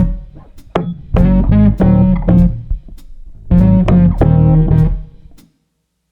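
Background music: electric guitar and bass playing chopped chords in short phrases with pauses, fading out to silence just before the end.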